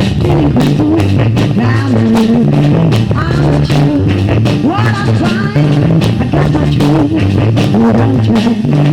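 Loud music playing, with a steady drum beat and a bass line.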